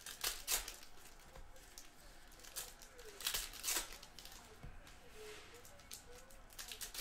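Plastic wrapping crinkling and tearing in several short bursts, as trading card packs are opened.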